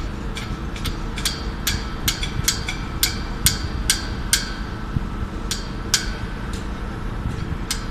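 Metal being struck over and over: sharp ringing taps about two a second, with a short pause midway, over a steady low rumble of traffic and site machinery.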